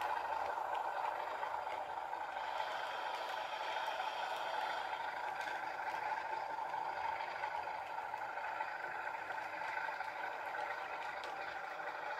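The sound decoder of an MTB model 060-DA diesel locomotive plays a steady diesel engine sound through its small speaker as the model runs along the track.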